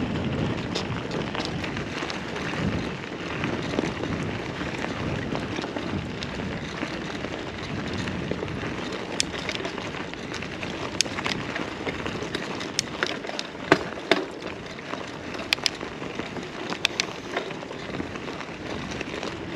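Mountain bike moving over a rough, slippery track: a steady rolling crunch and rattle, with scattered sharp clicks and ticks in the second half.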